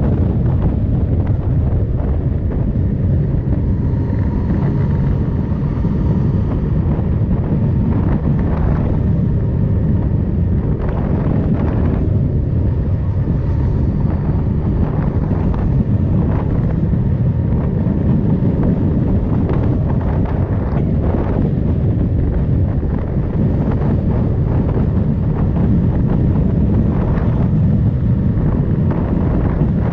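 Motorcycle riding at road speed: a steady engine drone buried under heavy wind buffeting on the microphone, with short gusts coming and going.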